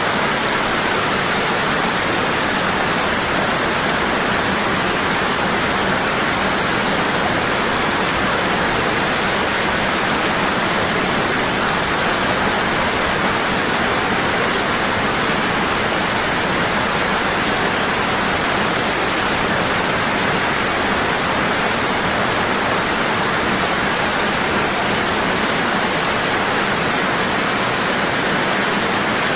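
Waterfall pouring in a strong, constant rush of falling water, with no change in level.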